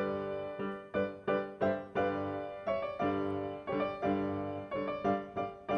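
Background piano music: a steady run of struck notes, each fading after it is played.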